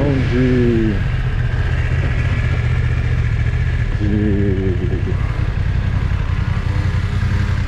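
Heavy wind rumble on the camera's built-in microphone over a motorcycle engine running at low speed in second gear as the bike slows on wet streets.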